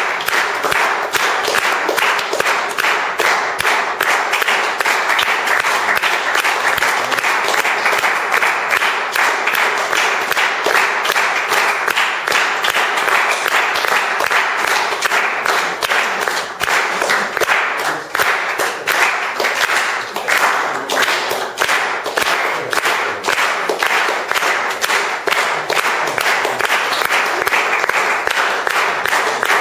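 A small audience applauding steadily, with many individual hand claps heard in the mass of clapping.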